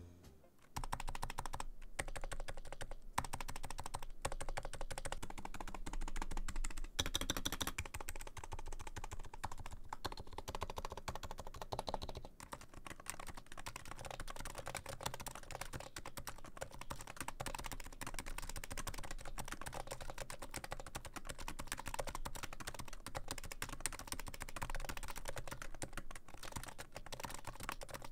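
Steady, fast touch-typing on a Topre REALFORCE GX1 keyboard, whose silenced electrostatic capacitive switches give a dense, irregular run of keystrokes that starts just under a second in.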